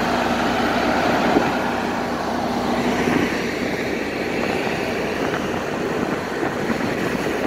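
Steady drone of a river car ferry's engine under way, mixed with wind and water noise. A low steady hum in it drops out about three seconds in.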